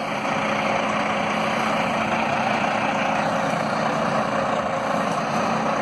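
Heavy-haul semi tractor's diesel engine running steadily.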